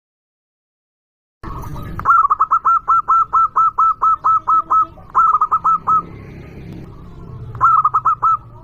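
Zebra dove (perkutut) calling: a fast run of short, hooked coo notes, about five a second, starting about two seconds in, followed by two shorter runs. A steady background hiss sits under the calls.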